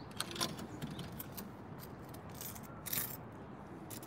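Coins being fed into a vending machine's coin slot, clinking and rattling down through the coin mechanism as a string of sharp clicks, the loudest about three seconds in.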